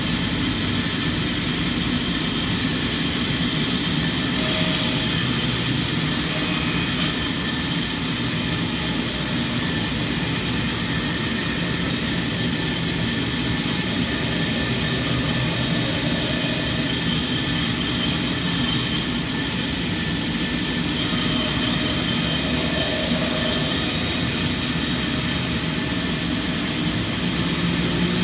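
Sawmill machinery running steadily, a dense mechanical noise with a high hiss that grows louder about four seconds in and eases and swells again later.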